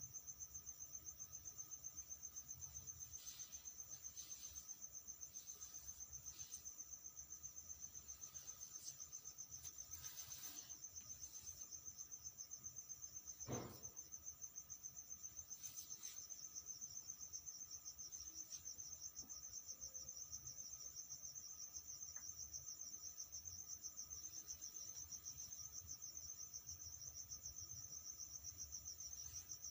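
Insects trilling: a continuous high-pitched, fast, even pulsing, with a few faint rustles and one sharp click about halfway through.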